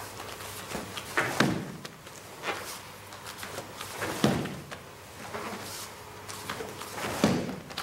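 Punches and knee kicks landing on a handheld kick pad: three loud thuds about three seconds apart, each with a lighter hit just before it.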